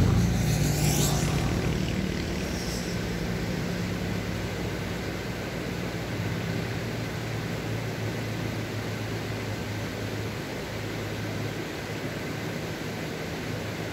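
A low engine drone that has just passed by, fading slowly, over a steady rushing noise.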